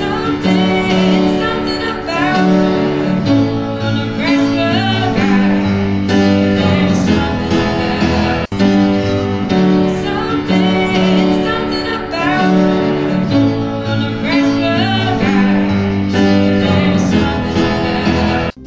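A woman singing to acoustic guitar with upright piano accompaniment, first as a binaural recording. After a brief break about halfway through, the same passage plays again in mono.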